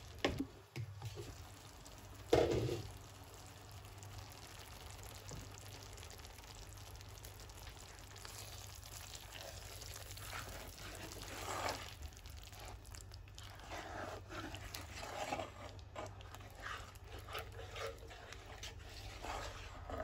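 A spoon stirring and scraping through thick, creamy mushroom sauce in a pan, in irregular strokes, with one sharp knock about two seconds in. A steady low hum runs underneath.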